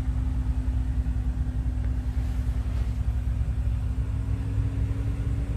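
Steady low rumble with a constant low hum, with no change or event throughout.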